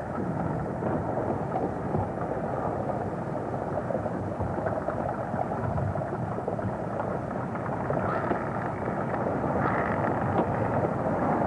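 Underwater sound of a submarine lava flow meeting seawater: a dense, steady crackling noise with a deep rumble beneath it.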